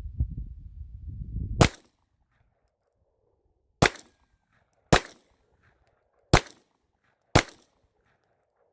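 Five single shots from a Smith & Wesson M&P9 9mm pistol, fired about a second to two seconds apart. A low rumble comes before the first shot.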